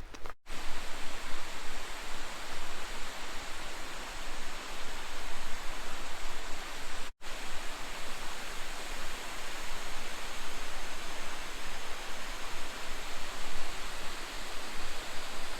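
Steady rushing roar of a tall waterfall's falling water. It cuts out briefly twice, about half a second in and about seven seconds in.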